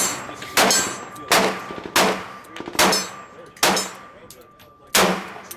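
Six revolver shots from a Kimber K6s, fired one after another at a steady pace just under a second apart, with a longer pause before the sixth, which empties the six-round cylinder.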